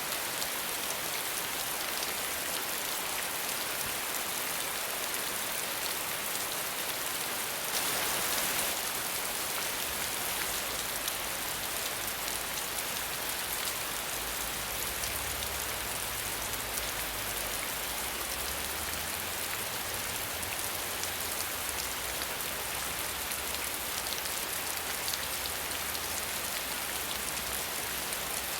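Steady rain falling, without thunder, with a brief louder swell about eight seconds in. A faint low rumble sits underneath from about a third of the way through.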